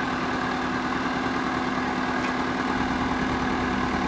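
Crane's diesel engine idling steadily with a low, even hum while the test load hangs suspended.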